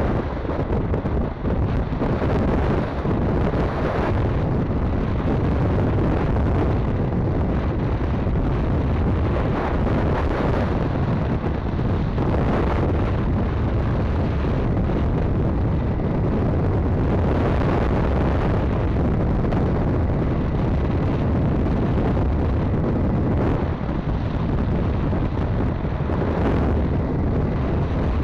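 Steady, loud wind rumble buffeting the microphone of a camera on a moving motorcycle, drowning out most other sound.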